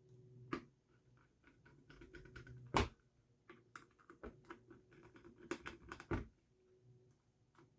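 Faint scattered clicks and light knocks of a plastic air-powered marker being handled, with one sharper click about three seconds in and a few more near the end.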